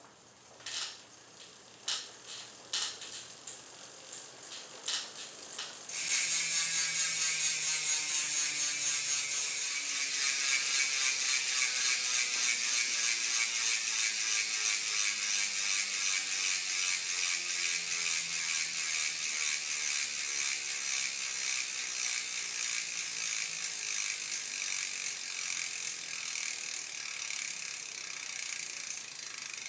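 DT Swiss 370 rear hub fitted with 36-tooth star ratchets, freewheeling. A few scattered clicks come first. About six seconds in, a sudden loud, even ratchet buzz starts as the wheel spins freely, and it slowly drops in pitch and fades as the wheel loses speed.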